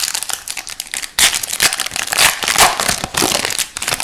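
The crinkly plastic wrapper of an Upper Deck Series 2 hockey card pack being torn open and crumpled by hand, louder from about a second in and stopping near the end.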